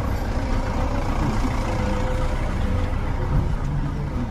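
City street traffic: a heavy vehicle's engine running close by, a steady low rumble with a faint steady hum over it.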